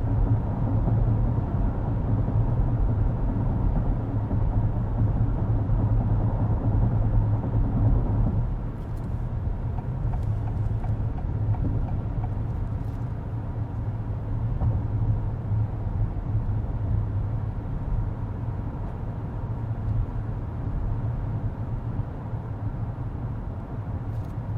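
Tyre and road noise heard inside the cabin of a 2023 Acura MDX, a steady low rumble from driving over rough, washboarded pavement. About eight seconds in it drops and becomes quieter and smoother, as the road surface changes.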